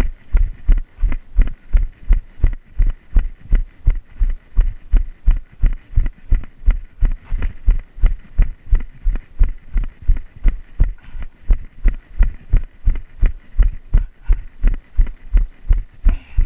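Running footfalls thudding in a steady rhythm of about three strides a second, each jolt picked up through a body-worn action camera.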